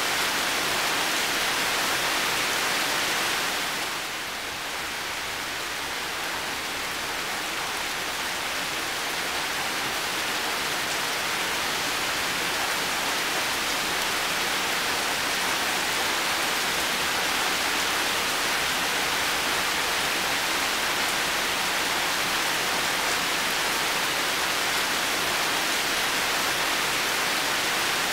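Heavy rain falling, a steady dense hiss of many drops. It eases slightly about four seconds in and slowly builds back.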